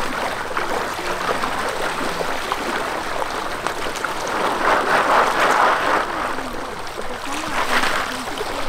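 Water sloshing and splashing as several people wade through shallow floodwater and one rummages with his hands in it, with a louder stretch of splashing about five seconds in.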